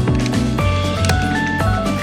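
Upbeat background music with a steady beat, a bass line and a bright melody stepping between short held notes.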